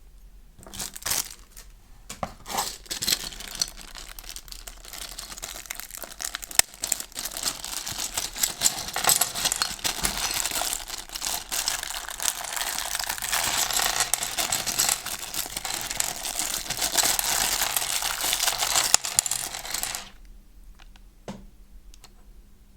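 Plastic packaging crinkling and rustling as it is handled and pulled off, with sharp crackles throughout. It stops abruptly near the end, leaving a few light clicks.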